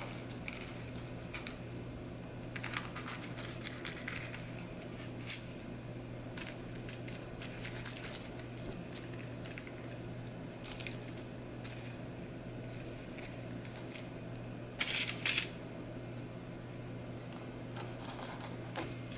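Crisp baked puff pastry crackling in short bursts as a knife cuts through its flaky top crust and a spoon breaks out the layers inside, with the loudest burst about three quarters of the way through.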